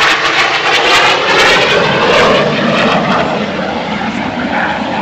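RAF Hawk T1 jet trainer's Adour turbofan, loud as the jet passes, then fading and dropping lower in pitch as it flies away.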